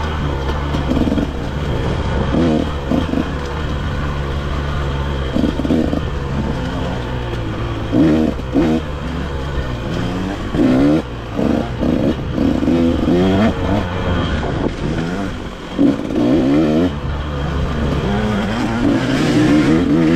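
Dirt bike engine under way, its throttle opened and closed again and again so the revs rise in short pulls between steadier running, most often in the second half.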